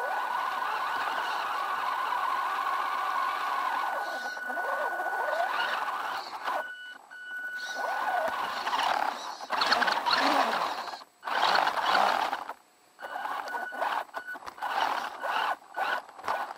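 Onboard sound of an electric RC truck's motor and gear drivetrain, a high steady whine under rattling and scraping as the truck drives over a dirt trail with roots and twigs. The sound cuts out suddenly twice in the second half, then picks up again.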